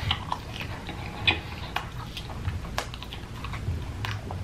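A person chewing a mouthful of fries coated in cheese sauce, with irregular mouth clicks.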